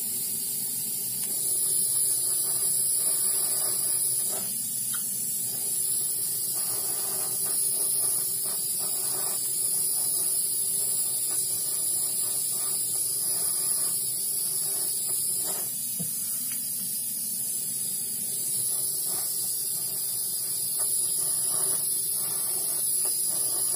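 Steady hiss of a jeweler's small gas torch flame heating a gold chain end and ring on a soldering board, burning off dirt and flux residue before soldering.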